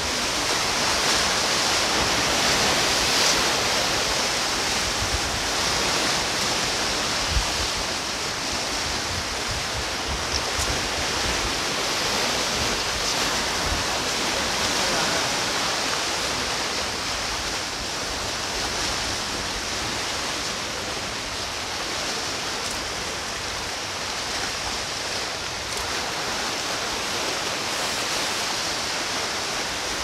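Sea waves washing steadily against a rocky shore, a continuous hiss of surf.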